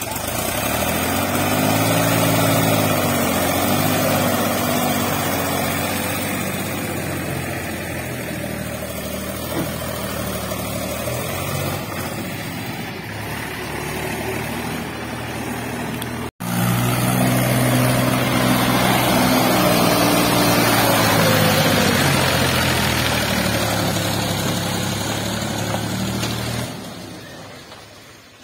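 Mahindra 275 DI Eco tractor's three-cylinder diesel engine working hard under load, pulling a trailer full of bricks through mud, its pitch rising and sagging as it strains. It breaks off abruptly just over halfway, comes back at full effort, and drops away about two seconds before the end.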